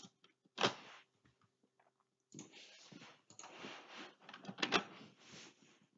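Computer keyboard typing: a single key click just after the start, then a run of quick keystrokes from about two seconds in until near the end.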